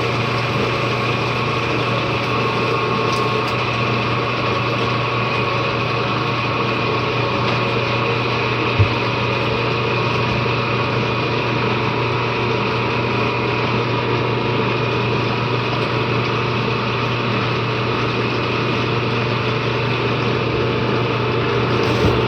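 An 18-inch LM dough sheeter's electric motor and rollers running with a steady hum, with one short knock about nine seconds in.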